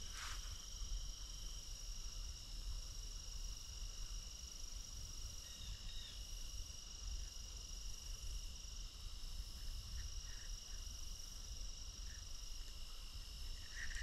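A steady chorus of insects: several high-pitched trills hold on together without a break, over a faint low rumble.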